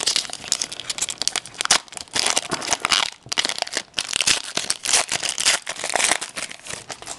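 Hockey card pack wrapper being torn open and crinkled by hand, an irregular run of crackling and tearing with a short pause about three seconds in.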